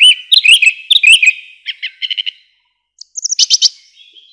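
A songbird singing: a run of quick chirping notes, then a short rapid trill. After a brief pause comes a higher twittering phrase that trails off.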